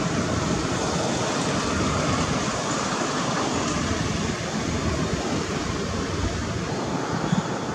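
Steady rushing background noise with an uneven low rumble underneath, without any clear calls or voices.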